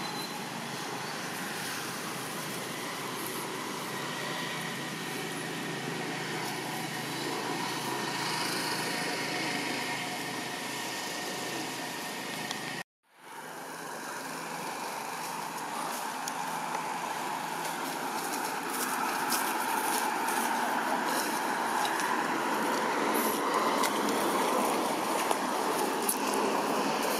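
Steady outdoor background noise with no clear single source. It breaks off abruptly for an instant about 13 seconds in and resumes a little louder, with a few faint clicks later on.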